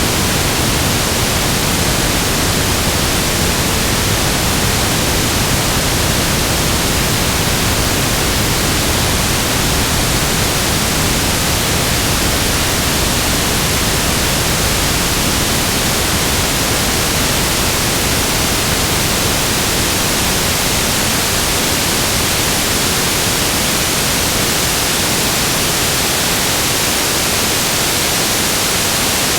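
Steady static noise: an even, loud hiss across the whole range with no tones, clicks or breaks.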